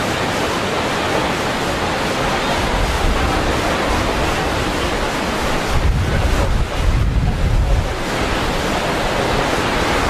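Steady rushing of Yosemite Falls, a dense even hiss of falling water. Wind buffets the microphone with a low rumble, strongest about six to eight seconds in.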